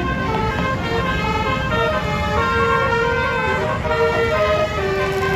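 Tour bus's basuri-type telolet horn playing a melody of held notes that shift pitch every fraction of a second, over the low rumble of the bus and traffic.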